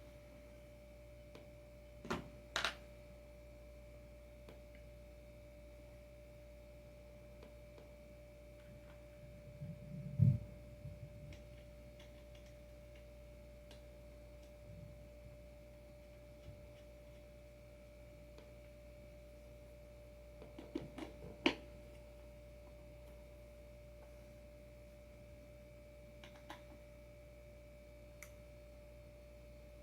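Quiet room with a steady faint hum, broken by a few short clicks from handling the skateboard hardware and one dull low thump about ten seconds in.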